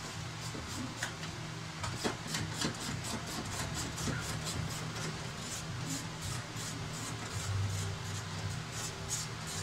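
Hand socket ratchet being cranked on a bolt at the radiator support, its pawl clicking in a quick steady rhythm of about three to four clicks a second.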